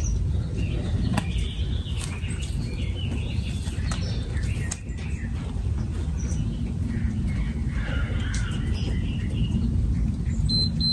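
Birds chirping over a steady low rumble, with two short high beeps near the end.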